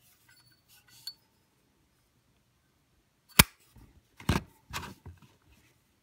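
Metal clicks and clacks from a Zippo windproof lighter being handled: faint clicks about a second in as the chrome insert is worked back into the case, then one sharp loud clack as the hinged lid snaps shut, followed by a few softer knocks about a second later.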